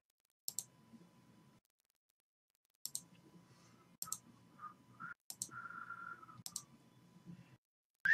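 Computer mouse clicking: five single, sharp clicks spaced one to one and a half seconds apart while text is selected and copied on a computer.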